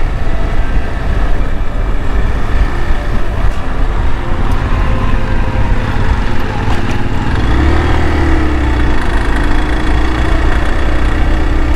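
Hero Xpulse 200's single-cylinder engine running under way on a dirt road, mixed with steady wind noise on the microphone. About two-thirds of the way in, the engine note firms up into a steady hum as the bike gathers speed.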